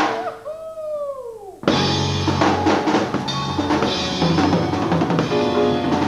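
A single sliding tone falls in pitch, then about a second and a half in a jazz band with piano and drum kit comes in suddenly and loudly and plays on.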